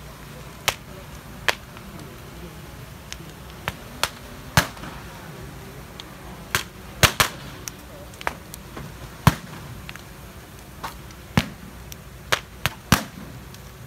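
Firecrackers going off as scattered single bangs, about fifteen at uneven intervals, some sharper and louder than others, over a steady low murmur of a large crowd.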